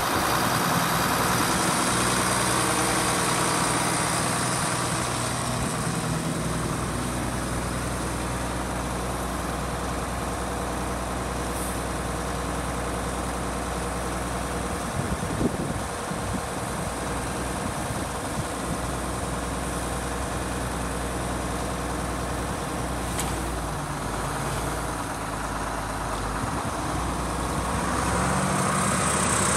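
John Deere 4440 tractor's six-cylinder turbo diesel idling steadily. It is a little louder near the start and again near the end, with one brief knock about halfway through.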